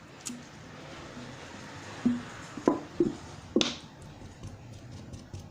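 Homemade slime of glue and laundry detergent being slapped and squeezed by hand: four short wet smacks in the middle, the last the loudest. The slime is still wet, leaking excess activator water.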